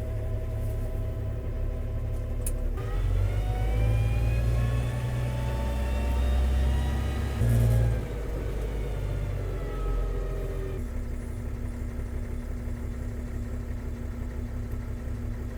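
New Holland TS135A tractor's diesel engine idling, revving up about three seconds in and holding higher revs under load for several seconds, then dropping back to idle near eleven seconds.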